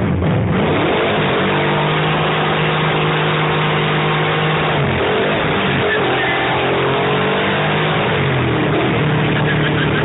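Chevelle Super Sport race car's engine heard from inside the cabin while driving. Its pitch climbs, holds, then drops back about halfway through and again near the end before climbing once more.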